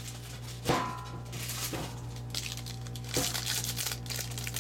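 A trading card box and pack being handled and opened: a few sharp crinkles and knocks about a second in, near two seconds and past three seconds, over a steady low hum.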